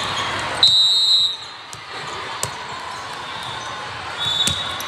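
Referee's whistle: one blast lasting about half a second, a little way in, and a shorter whistle near the end. Under it is the echoing din of a busy volleyball hall, with scattered ball thuds and voices.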